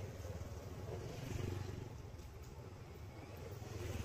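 Road traffic going by: a low rumble of passing motorbikes and cars that swells about a second and a half in and again near the end.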